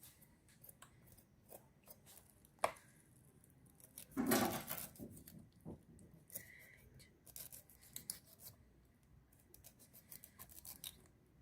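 Knife cutting and scraping the eyes out of a peeled pineapple: a run of short, crisp cuts with one louder handling noise about four seconds in.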